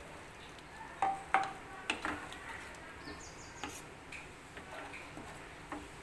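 Wooden spatula knocking and scraping against a pan while stirring gravy: a few sharp, irregular clacks, the loudest about a second in, over a faint steady background hiss.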